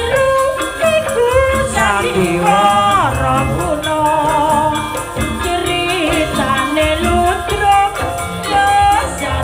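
Live Javanese campursari music: a woman sings into a microphone in a wavering, ornamented vocal line over a steady percussion ensemble with rattling accents.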